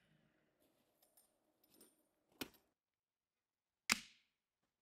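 Two sharp clicks or knocks about a second and a half apart, the second the louder with a short ring after it, over near quiet with a few faint ticks.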